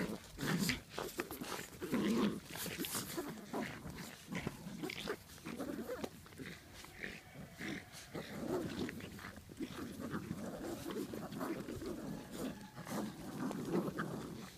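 A litter of five-and-a-half-week-old American Bulldog puppies growling in play as they tug at a towel together, with short scuffs and rustles in between.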